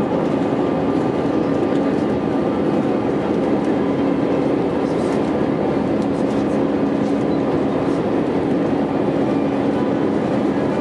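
Steady jet engine and airflow noise inside the cabin of an Airbus A320 climbing after takeoff, with a constant low hum under it.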